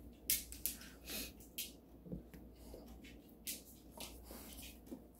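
Faint short rustles, about a dozen scattered irregularly, over a low steady room hum.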